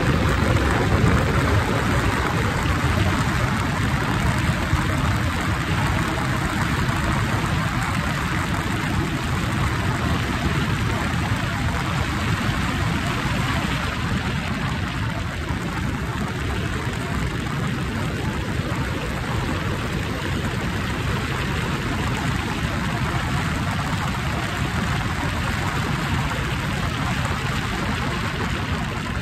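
Motorcycle ridden at a steady road speed: a constant rush of wind and engine noise.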